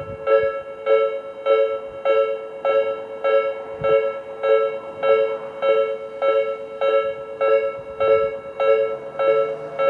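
Japanese railway level-crossing alarm of the slow-tempo Tobu type B kind: an electronic bell tone struck evenly about twice a second, ding, ding, ding, signalling that a train is approaching and the crossing is closed.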